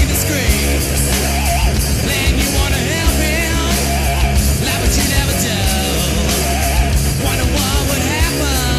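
Hard rock song from a 1993 demo recording: distorted electric guitar, bass and drums with a steady beat under sung vocals.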